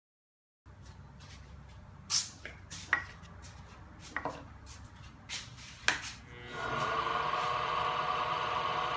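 Several sharp knocks and clicks of objects being handled on a workbench, then a small power tool starts about six and a half seconds in and runs steadily.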